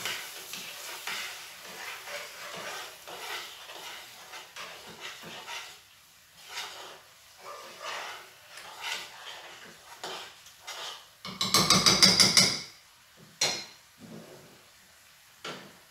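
A utensil stirring cream through chicken in a frying pan, with a run of light knocks and scrapes against the pan. About twelve seconds in there is a loud clatter of cookware lasting a little over a second, then a single sharp knock.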